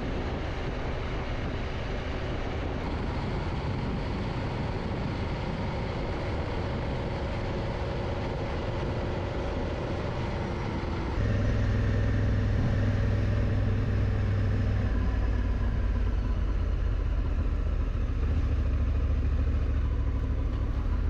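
Honda Africa Twin motorcycle engine running steadily. About halfway through, the sound cuts abruptly to a louder, deeper rumble.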